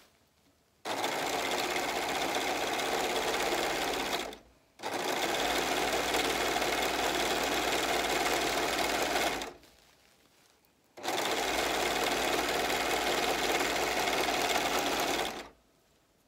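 Singer four-thread overlock machine (serger) running fast and steady as it stitches the edge of sequined fabric, in three runs of about four seconds each with short pauses between them.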